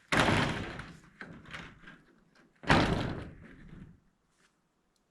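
Two loud clattering bangs of roofing panels being handled, about two and a half seconds apart, each trailing off over about a second.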